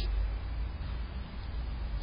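Steady low rumble and faint even hiss of background noise picked up by a Blink security camera's microphone, with no distinct sounds from the animals.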